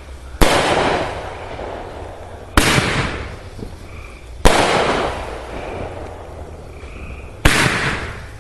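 Fireworks going off: four loud bangs about two to three seconds apart, each trailing away over a second or two.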